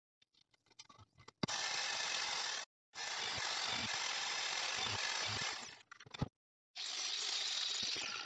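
Power tools working steel plate: a few light metal clicks and knocks, then three bursts of steady, harsh machine noise, each cut off abruptly.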